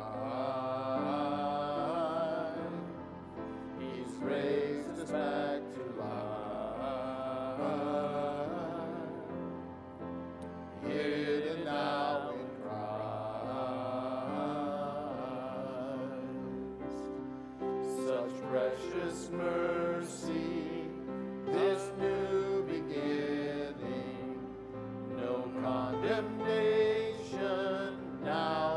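Worship song being sung: voices carrying the melody over sustained instrumental accompaniment.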